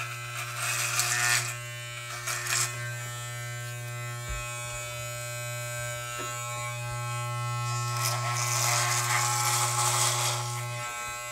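Corded electric hair clippers running with a steady buzz. Crisp cutting noise comes in twice early on and again for a couple of seconds toward the end as the blades cut through a thick beard. The buzz drops out briefly near the end.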